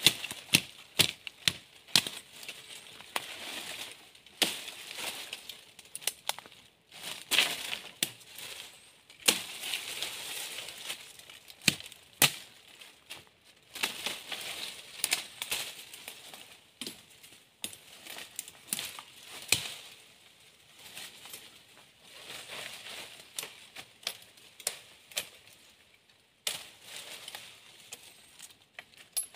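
Machete chopping thin sticks and saplings in undergrowth: irregular sharp chops, mixed with the rustle of dry leaves and brush being pushed through and stepped on.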